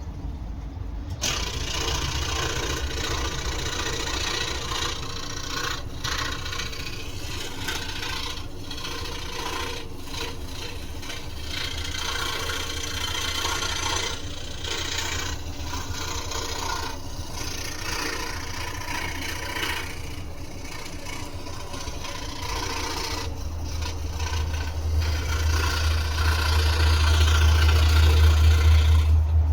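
Scroll saw running and cutting wood: a steady low motor hum with the rasp of the blade in the wood, which starts about a second in and breaks off briefly now and then. The low hum grows louder near the end.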